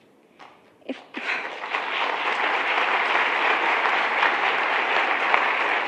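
Audience applause: a few scattered claps, then within about a second a full, steady round of clapping from many people.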